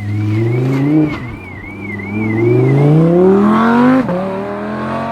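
Rally car engine accelerating hard up through the gears: the revs climb, drop sharply at a gear change about a second in, climb again and drop at another shift near the end.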